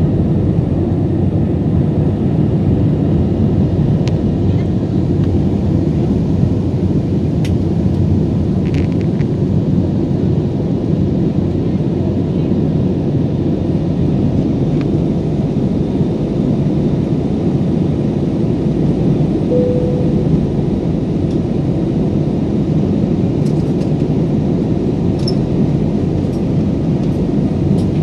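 Steady cabin noise of a jet airliner in cruise flight, the even rumble of engines and airflow heard from a window seat. A short faint tone sounds about two-thirds of the way through.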